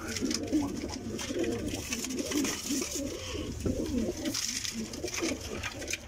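Domestic pigeons cooing in a small enclosed loft, several coos overlapping one another.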